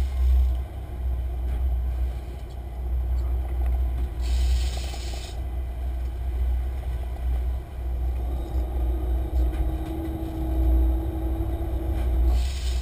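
Sportfishing boat running under way: a deep engine rumble with a hum that grows stronger in the second half, wind buffeting the camera microphone, and a brief burst of hiss from wake or spray about four seconds in.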